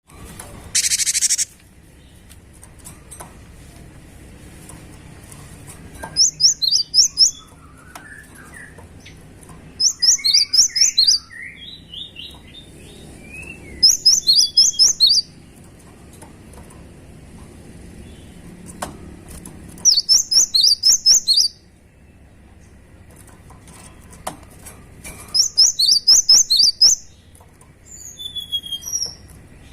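Cinereous tit (gelatik batu) singing in loud bursts of rapid, quickly repeated high notes, each burst about a second long and coming every four to six seconds, with some lower warbling notes between the bursts early on. A short loud hiss sounds about a second in.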